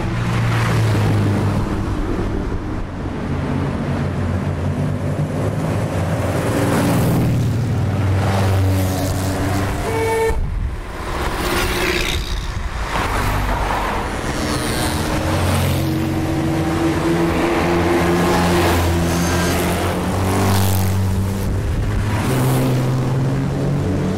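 Classic sports and racing car engines driving past one after another, each swelling as it nears and fading as it goes. A short car horn toot about ten seconds in.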